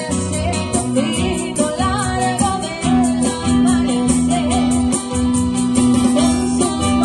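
Song with a sung vocal melody over guitar and a steady beat with a held bass line.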